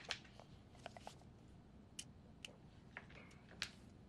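Near silence: quiet room tone with a few faint, scattered clicks.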